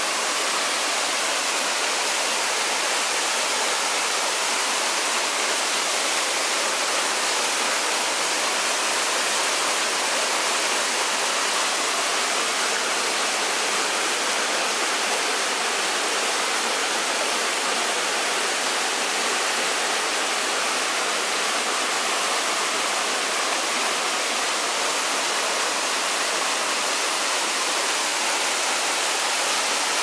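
Small forest waterfall pouring into a rocky plunge pool: a steady rush of falling water.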